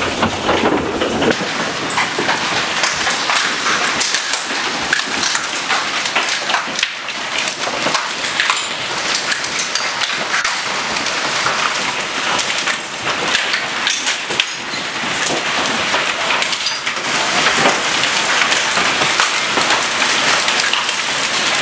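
Heavy hail and rain storm heard through a broken window: a loud, steady, dense patter with many sharp hailstone hits, hail striking the house.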